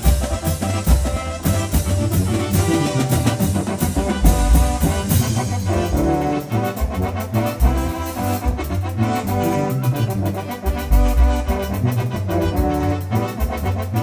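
Live Mexican regional band playing an instrumental passage with a steady beat: keyboards carrying the melody over a tambora bass drum and drum kit, with no vocals.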